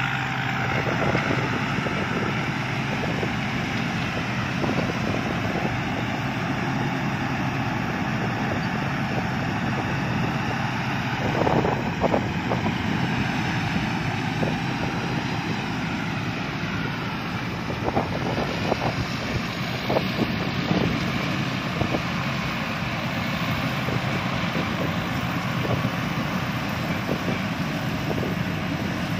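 Rice combine harvesters running steadily while harvesting, a constant engine drone with machinery noise, and a few short knocks or rattles near the middle.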